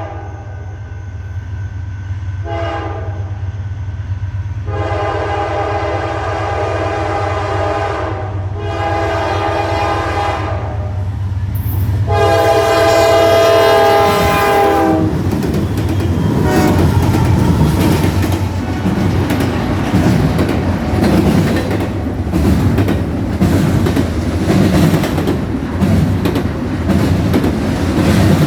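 A fast Norfolk Southern train passing: the locomotive horn sounds in several blasts over a low engine drone, the last and loudest ending about halfway. Then the horn stops and the cars rush past with steady clattering wheel and rail noise.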